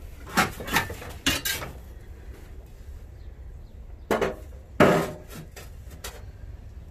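Garage tools being shifted while a spade is searched for, making sharp metallic clanks and knocks. There are about four in the first second and a half, then two more a little past the middle, the last of these the loudest.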